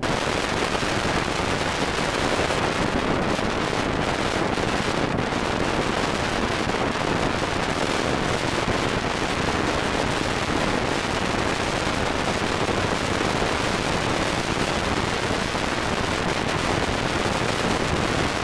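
Wind rushing across the microphone through the open window of a moving car: a loud, steady rushing noise.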